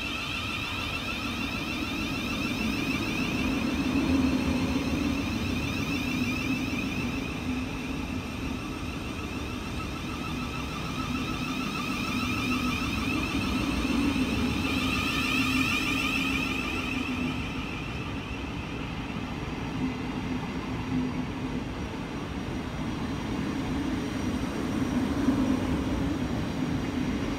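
Sixteen-car Thameslink Class 700 electric multiple unit, two units coupled, passing along the platform: steady running noise of wheels on rail with a high whine that fades about two-thirds of the way through.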